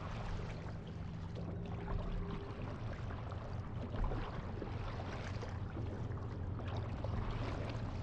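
Small, irregular splashes and lapping of calm seawater close to a waterline microphone, over a steady low wind rumble.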